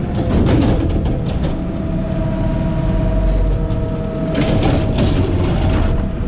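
A McNeilus ZR automated side-loader garbage truck runs its hydraulic arm to bring an emptied recycling cart back down. A steady hydraulic whine sits over the diesel engine's low rumble. The arm and cart clank, loudest a little past four seconds in and again near the end.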